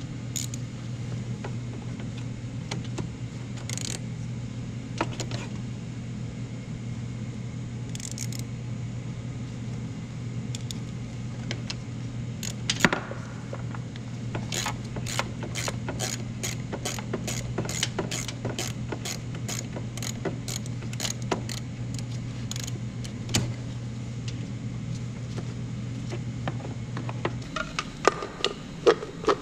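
Metal hand tools clicking and clinking against car parts, with a long run of evenly spaced clicks, about two or three a second, through the middle and a few sharper clinks near the end. A steady low hum runs underneath and stops near the end.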